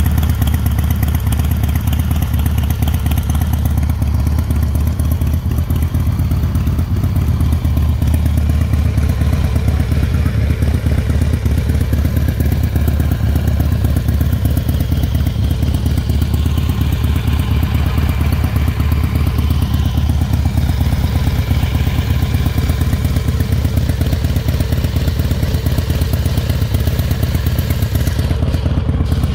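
2000 Harley-Davidson Night Train's Twin Cam 88B V-twin engine idling steadily.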